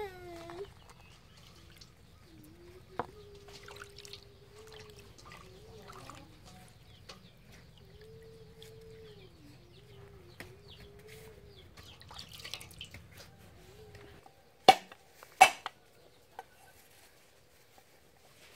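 Faint small clicks and drips as wet herbs are set down on a plastic plate, with a faint long wavering tone in the background. About fifteen seconds in, two sharp knocks of a knife chopping on a wooden cutting board, the loudest sounds here.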